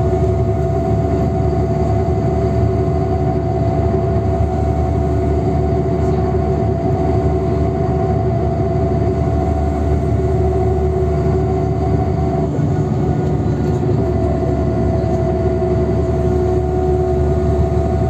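NefAZ 5299 city bus driving at highway speed, heard from inside the passenger cabin: a steady rumble of engine and road noise with a steady whine over it. The whine drops out briefly about twelve seconds in, then returns.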